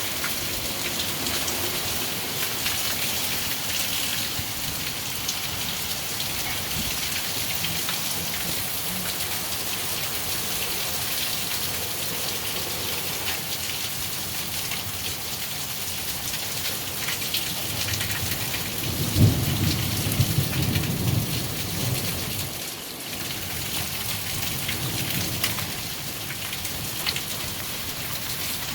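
Heavy rain falling steadily, with a low roll of thunder about two-thirds of the way through.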